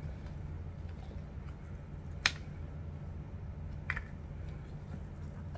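Two sharp clicks while eating: a loud one about two seconds in and a softer one near four seconds, over a steady low hum.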